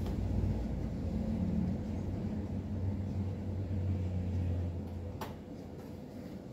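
Low rumbling noise of clothing and body moving close against the microphone while hands work inside a mini-PC case, easing off after about five seconds, with one sharp click near then.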